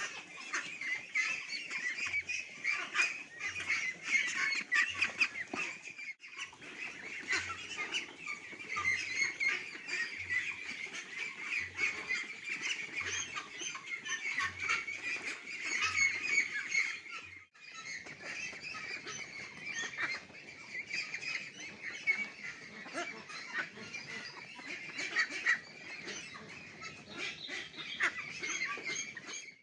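A large flock of month-old hybrid ducklings calling over one another: a dense, unbroken chorus of high-pitched calls.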